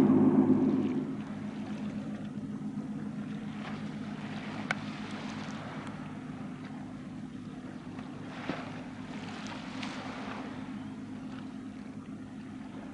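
Engine hum of a 16 m high-speed passenger boat under way, steady and fairly low-pitched. It drops in level about a second in and carries on quieter over wind and water hiss as the boat runs away. A single sharp click comes about five seconds in.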